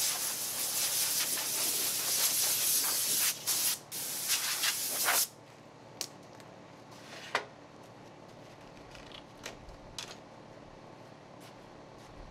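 Compressed air hissing from an air-hose nozzle, in one long blast with two short breaks, for about five seconds, then stopping suddenly; a few faint clicks follow.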